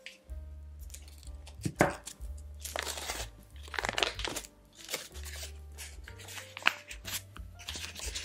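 Foil butter wrapper crinkling and rustling as it is peeled open from a block of butter, with a few sharp crackles, over soft background music.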